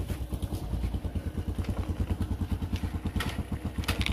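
A quad bike's motorcycle-type engine idling with an even, rapid beat. Two short clicks come about three and four seconds in.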